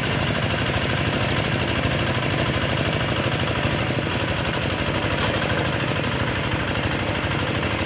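Two-wheel hand tractor's single-cylinder diesel engine running steadily with a rapid, even chugging while it harrows a muddy rice paddy.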